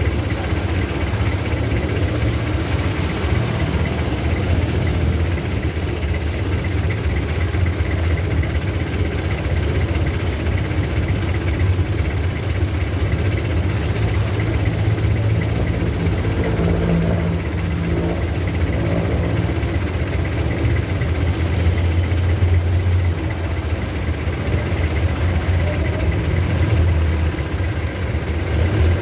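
Jeepney's Isuzu 4DA1 diesel engine idling steadily, heard from inside the cabin.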